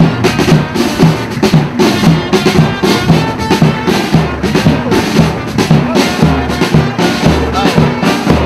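Brass band with drums playing a slow march, the low notes keeping a steady beat of about two a second.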